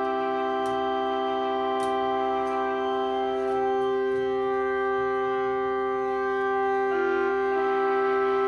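Whelen Vortex and Federal Signal Thunderbolt 1003 tornado sirens sounding together at a steady pitch. Their tones blend into a held, organ-like chord, with a slight shift in some of the tones about seven seconds in.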